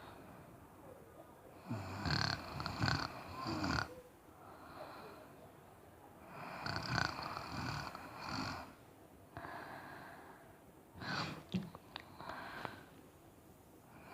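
Snoring in slow breathing cycles: three loud snores about four to five seconds apart, each broken into several short pulses, with quieter breaths between.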